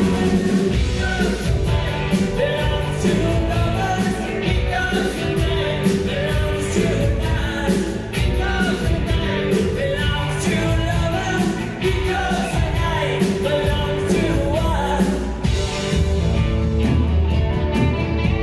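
Live rock band playing a song: sung lead vocal over guitars, bass guitar and a drum kit with cymbals, heard through the hall's amplification.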